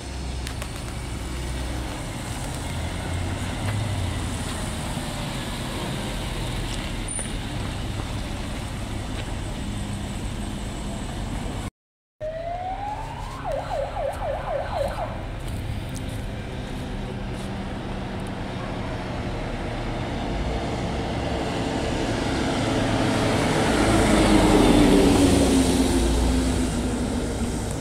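Fire engines responding to a call: steady engine rumble, then a siren winding up and switching to a fast warble about halfway through. Near the end a fire engine passes close, the loudest part, its pitch falling as it goes by. The sound drops out briefly near the middle.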